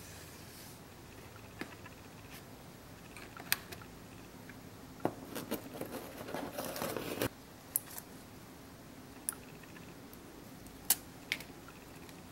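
Hands handling small plastic camera parts: a filter adapter ring and install tool on the lens of a compact camera. There are scattered light clicks and taps, with a rustling, scraping stretch of about two seconds midway.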